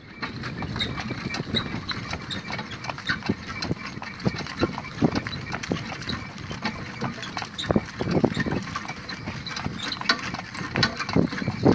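A pony in hoof boots pulling a two-wheeled gig on a dirt track: a steady run of hoofbeats mixed with the knocks and rattles of the cart and harness.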